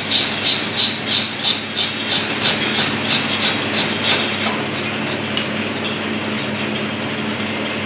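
Lathe running during a turning cut, with a steady hum under the cutting noise; for the first few seconds the sound pulses about three times a second, then it evens out.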